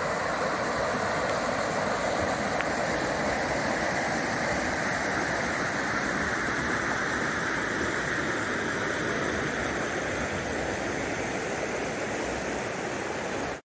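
River water flowing over a low rock ledge and through shallow riffles: a steady rush of moving water that cuts off suddenly near the end.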